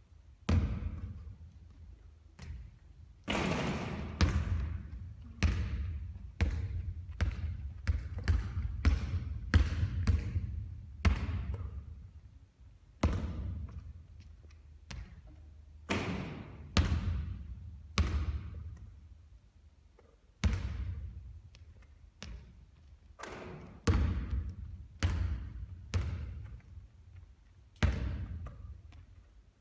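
Basketball impacts during three-point shooting practice: a long, irregular series of sharp thuds, each ringing out briefly, some coming in quick runs of bounces and others spaced a second or two apart.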